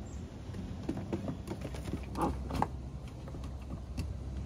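Scattered light taps and clicks of a dachshund puppy's paws and claws on wooden deck boards as it scrambles around a Bernese mountain dog, with a couple of short squeaky puppy noises about halfway through.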